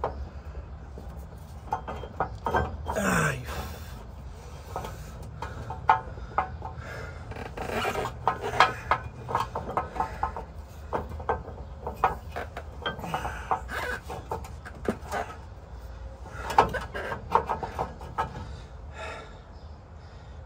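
Irregular metal clicks, knocks and scrapes as a lift-kit torsion key is worked by hand into the torsion bar socket on the truck's frame crossmember, over a steady low hum.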